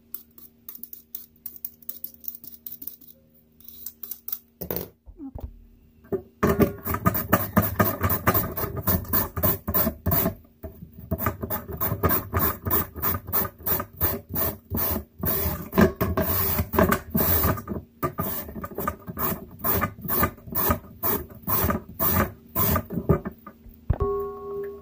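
Daikon radish being peeled with a hand peeler, a few scattered strokes at first. From about six seconds in it is shredded on a plastic mandoline slicer: a long run of quick, even rasping strokes, several a second, that stops shortly before the end.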